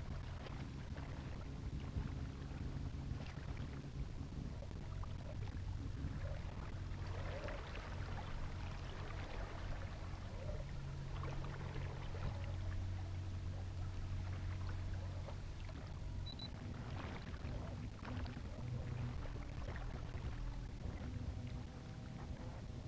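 Small boat moving slowly under a Minn Kota electric trolling motor: water lapping and trickling along the hull over a steady low hum.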